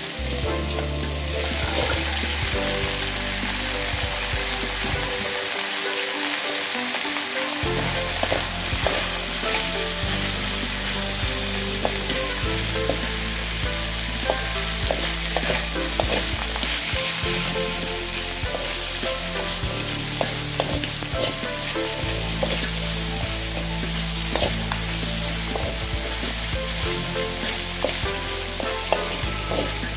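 Long beans and chicken sizzling in a hot wok, stir-fried with a wooden spatula that scrapes and knocks against the pan now and then.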